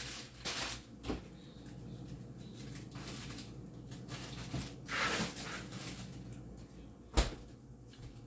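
Quiet kitchen handling noises over a faint steady hum: a few brief rustles, and a single sharp knock about seven seconds in.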